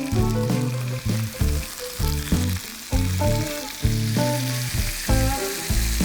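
Food sizzling in hot oil in a frying pan, the sizzle swelling in the second half. Background music with a steady beat plays over it.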